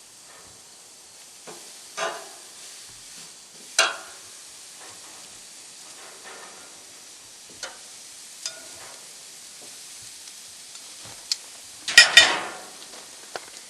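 Steaks sizzling on a charcoal grill: a steady hiss with scattered crackles and a few louder spitting bursts, the loudest near the end.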